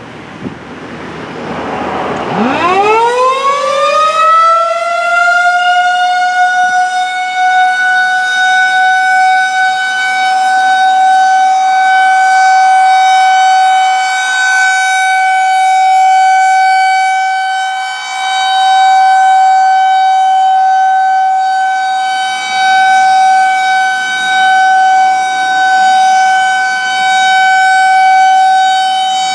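Federal Signal 2001-130 rotating electromechanical warning siren starting up for the steady Alert signal. About two seconds in it winds up in a fast rising whine to a steady high tone, then holds it, swelling and fading in loudness as the horn turns.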